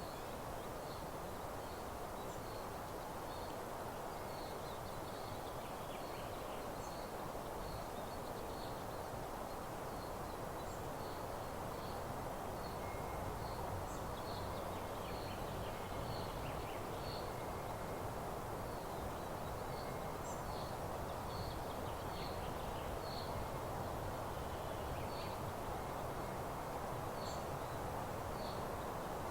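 Meadow ambience: a steady, even rushing background with a small bird repeating a short high chirp, one or two times a second.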